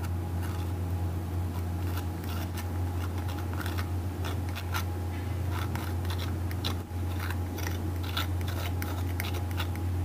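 Metal palette knife scraping and dabbing acrylic paint onto a stretched canvas: a run of short, irregular scratchy clicks over a steady low hum.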